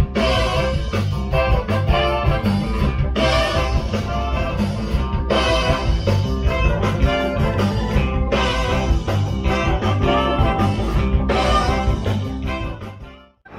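Live band music from an outdoor stage, with guitar and a drum kit, fading out near the end.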